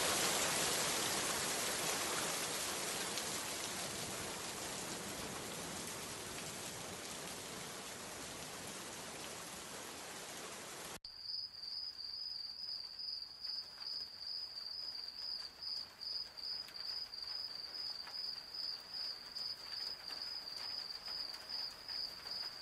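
Steady rain hiss that swells at the start and slowly fades. About eleven seconds in it cuts off abruptly to crickets chirping, a high pulsing trill about twice a second.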